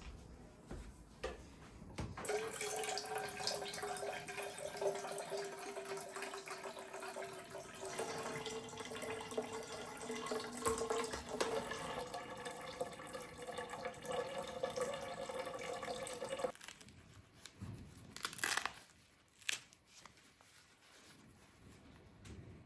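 Water running from a tap into a sink for about fourteen seconds, then shut off, followed by a couple of short knocks.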